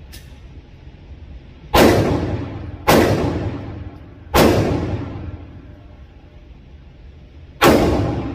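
Four pistol shots, each a sharp crack followed by a long echoing decay in an indoor range; the first three come a second or so apart, the last after a pause of about three seconds.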